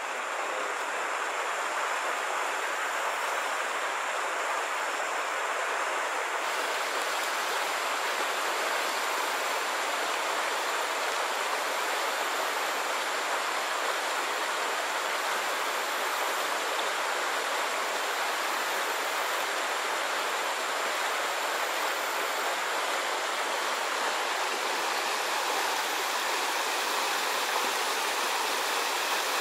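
Stream water rushing over a rocky riffle: a steady, unbroken rush of running water.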